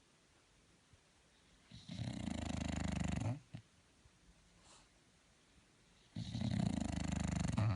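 Snoring: two long snores about four seconds apart, each lasting about a second and a half, with quiet breathing between them.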